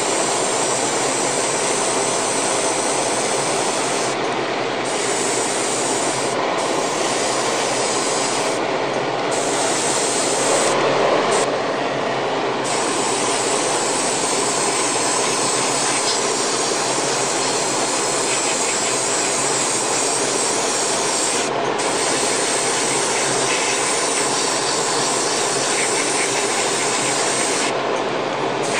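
Airbrush hissing steadily as it sprays primer onto plastic model parts, over the steady rush of a spray booth's exhaust fan. The hiss cuts out briefly several times when the trigger is let off, while the fan keeps running.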